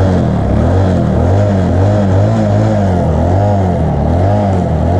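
Bajaj Boxer motorcycle's single-cylinder engine running, its pitch rising and falling in quick swells about twice a second. The exhaust is rubbing on the centre-stand shaft, which the mechanic says makes that part vibrate when the engine is accelerated.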